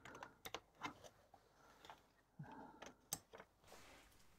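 A few faint, sharp clicks and taps of cable plugs being pushed into the sockets of a ZX Spectrum circuit board, spread out with short pauses between them.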